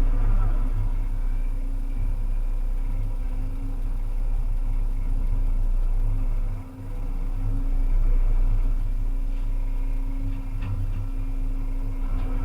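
Volvo EC300E excavator's diesel engine running steadily as a deep, continuous hum while the machine works, with a short dip in level about halfway through.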